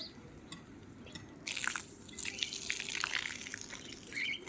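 Water splashing and rushing, which starts suddenly about a second and a half in; before it there are only small drips and clicks.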